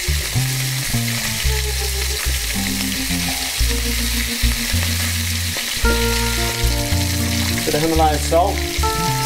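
Fish frying in hot oil in a cast-iron pan, a steady sizzle, under background music of slow, steady low notes.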